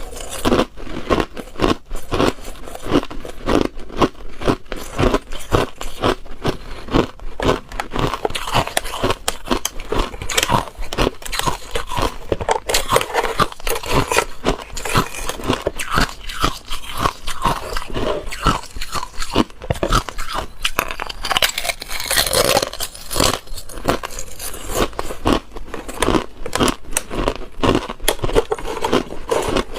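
A person biting and chewing hard ice up close: continuous crunching and cracking of ice between the teeth, many sharp crunches a second.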